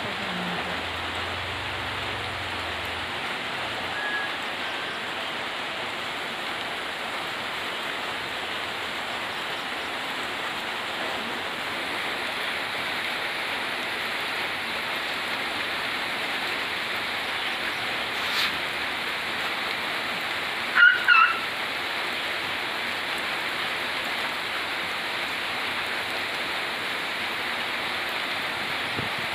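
Steady hiss of rain. About two-thirds of the way in there is a single click, followed a couple of seconds later by a brief high call heard twice in quick succession, the loudest sound here.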